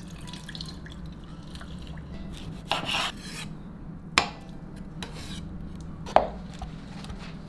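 Kitchen knife slicing snap peas and aloe vera on a cutting board: rubbing and scraping, with two sharp knocks of the blade on the board about two seconds apart, over a steady low hum.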